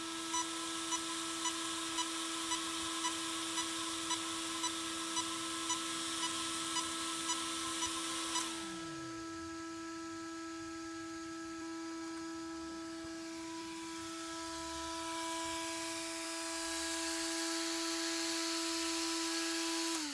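Small high-speed RC cooling fans (Yeah Racing 'tornado' fans) running at full speed with a steady whine. A light tick comes about twice a second for the first eight seconds. Then one fan spins down with a falling pitch, while the other keeps whining and spins down right at the end.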